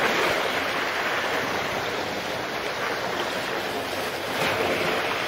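Small waves washing and breaking against the edge of a concrete slipway: a steady rush of surf that swells a little near the end.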